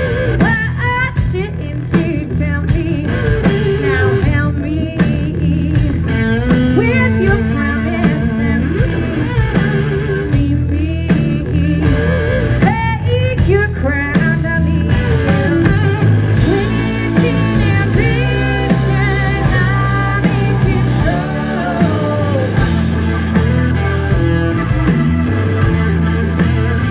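Live blues-rock band playing: electric guitar, drums, bass and keyboards, with a woman singing.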